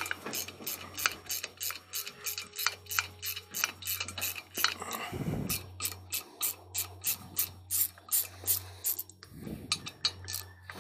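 Socket ratchet clicking steadily, about three to four clicks a second, as 10 mm bolts are backed out of an Eaton M90 supercharger housing. A low steady hum runs underneath.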